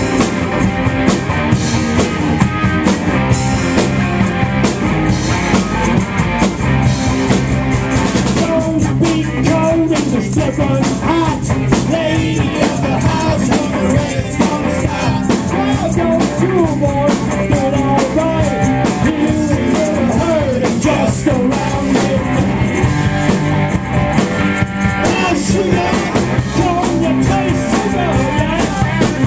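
Live rock band playing loudly: electric guitars and a drum kit, with a melody line that bends in pitch coming in about nine seconds in.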